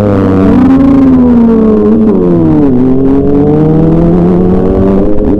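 Sport motorcycle engine pulling away from a stop, its pitch sinking and then climbing again after a dip about two and a half seconds in.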